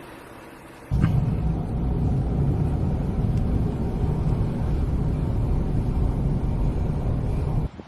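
Small car driving through snow: a loud, low rumble of engine and tyres that starts suddenly about a second in and cuts off near the end.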